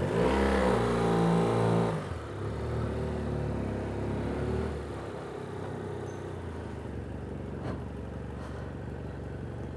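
BMW F800GS parallel-twin motorcycle engine pulling away and revving up, with a gear change about two seconds in and a second rise in pitch. It then settles into a steady low-speed run.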